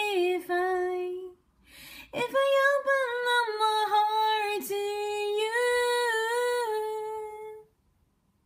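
Solo female voice singing a cappella, a pop ballad's closing chorus: a line ends about a second in, a breath, then one long phrase that ends on a held note.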